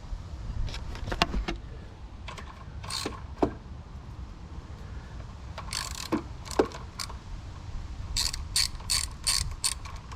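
Hand ratchet wrench clicking as bolts are tightened on the alternator mounting, with scattered taps and clicks of tool on metal, then a quick run of ratchet clicks near the end.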